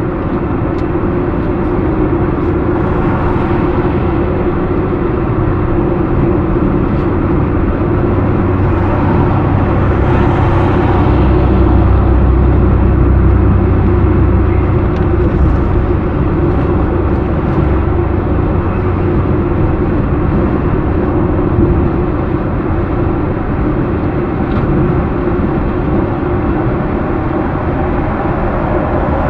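Steady road noise heard inside a car cruising on a highway: tyre and engine rumble, growing a little louder and deeper in the middle.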